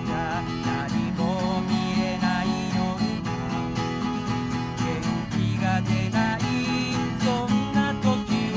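Acoustic guitar strummed in a steady rhythm, with a wavering higher melody line coming and going above the chords.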